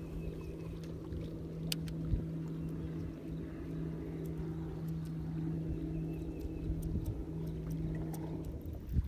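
Bass boat's electric trolling motor humming steadily over a low rumble of wind and water, then cutting off about a second before the end. A few faint clicks.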